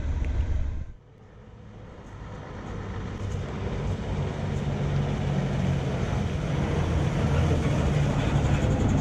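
Vintage double-decker bus's diesel engine running as the bus approaches and pulls up close, growing steadily louder; the sound starts about a second in after a sharp cut.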